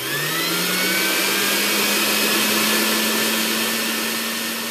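Synthesized intro sound effect: a dense hiss with a hum that rises in pitch over the first second, then holds steady and begins to fade near the end.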